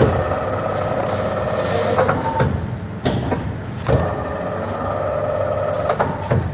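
Twin drop cookie depositor running: a steady mechanical hum with sharp knocks every second or two.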